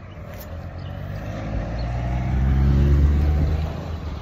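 A motor vehicle passing on the road: its engine note grows louder, peaks about three seconds in and fades as it goes by.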